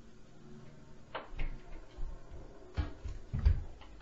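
Heavy thumps and knocks from the upstairs apartment coming through the ceiling, typical of stomping footfalls overhead. About half a dozen dull thuds, some with a sharper knock, start about a second in; the loudest comes near the end.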